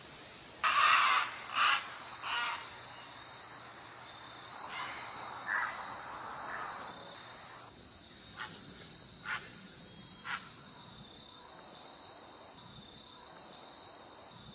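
Insects trilling steadily at a high pitch, with several short, harsh, noisy calls over it: three loud ones in the first two and a half seconds, then fainter, shorter ones spaced about a second apart later on.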